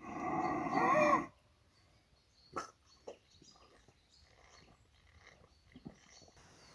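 An elk's call: one long cry of about a second, wavering in pitch. After it come faint scattered clicks and rustles, with one sharp click about two and a half seconds in.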